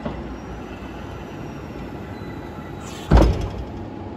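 New Holland L218 skid steer running with a steady low drone. About three seconds in there is a single loud metallic clunk.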